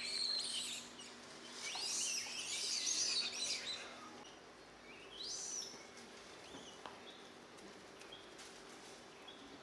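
Wild birds calling in clusters of quick, high, sweeping notes, busiest about two to three seconds in and sparser afterwards.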